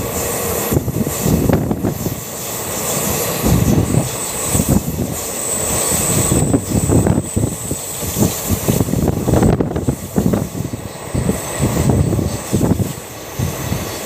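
Running noise of a moving passenger train heard from an open coach doorway: an uneven low rumble of the coach on the rails, with wind buffeting the microphone in gusts.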